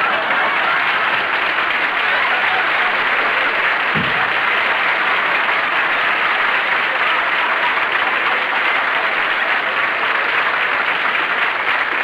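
Studio audience applauding, a dense, even clapping that holds steady.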